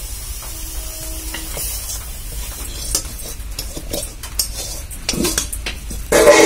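Metal spatula scraping and clinking against a metal wok and a steel plate as fried water lily stems are served out, with scattered clicks and knocks and a louder burst of sound near the end.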